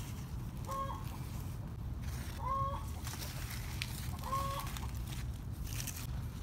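A bird calling three times, about every two seconds, each call short and steady in pitch, over a steady low rumble.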